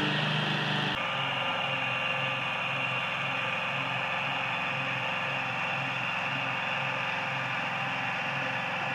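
Small garden tractor engine running steadily under load as it pulls a cultivator through the soil, with a faint even pulse and an abrupt change in tone about a second in.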